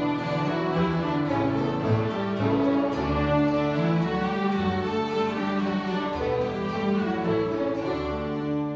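A fiddle ensemble playing an instrumental tune together: many fiddles over acoustic guitar and cello accompaniment, with sustained melody notes above a moving bass line.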